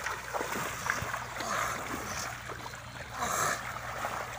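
Shallow water sloshing and swishing as a push net is shoved through it by a wading man, with small splashes throughout and two louder surges, about a second and a half in and again past three seconds.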